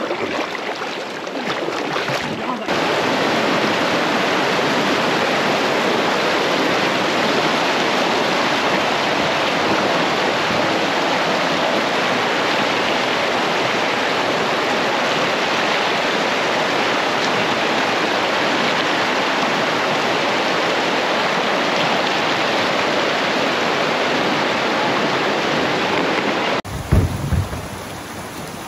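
Whitewater rushing through a boulder-strewn creek rapid close by: a loud, steady rush of water. It starts suddenly a few seconds in. Near the end it drops to a quieter running flow with a few low thumps.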